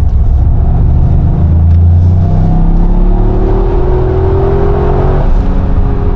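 Toyota GR Yaris's turbocharged 1.6-litre three-cylinder engine under hard acceleration, heard from inside the cabin. The revs climb steadily, then drop suddenly with an upshift about five seconds in, and the engine pulls on.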